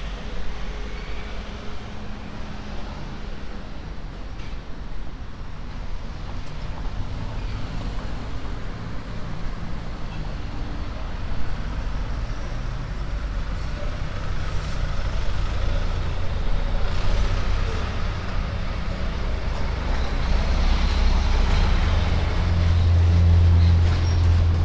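Road traffic: vehicle engines running and passing on the street, with a low engine hum growing louder near the end.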